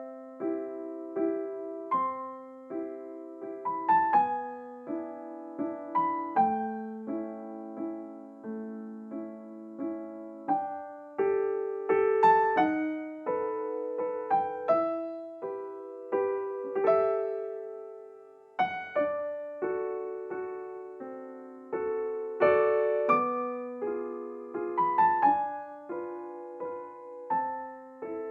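Slow, gentle solo piano music: single notes and soft chords, each struck and left to fade.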